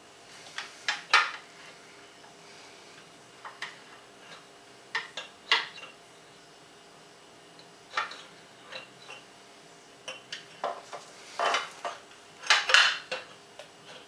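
Irregular metal clinks and knocks from an outboard lower unit gear case being worked up against the motor's midsection, shifting it to line up the drive shaft splines and seat the water tube in its grommet. The loudest cluster of knocks comes near the end.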